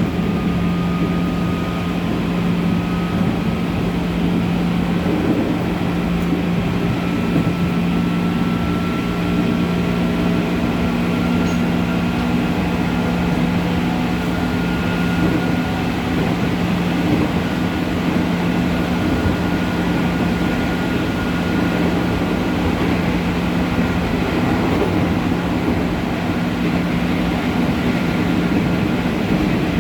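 Running sound inside the motor car of a JR 205 series electric train at speed: a steady rumble of wheels on rail with traction-motor and gear whine, one high whine rising slowly in pitch through the first half and then holding steady.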